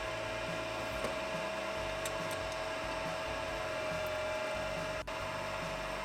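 A benchtop metal lathe is running with a steady motor whine while a 1/4 inch drill bit in the tailstock chuck bores into spinning aluminium round stock. The sound drops out briefly about five seconds in.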